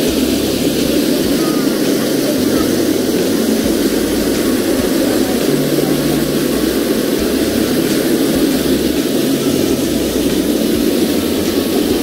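Steady rush of creek water pouring over rocks at a waterfall: an unbroken, even noise with no change in level.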